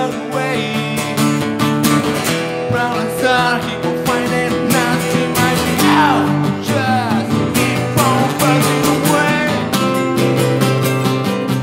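Two acoustic guitars strummed together while a man sings into the microphone: an acoustic rock song performed live.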